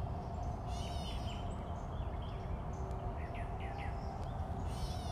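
Birds chirping in short calls, a cluster about a second in and another past the midpoint, over a steady low outdoor rumble with a faint steady hum.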